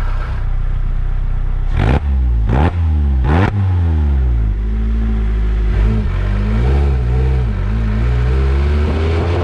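Supercharged Lotus Exige four-cylinder engine breathing through an aftermarket header exhaust while driving. Three sharp cracks come about two to three and a half seconds in as the revs drop, then the engine runs at low revs and starts to climb in pitch near the end.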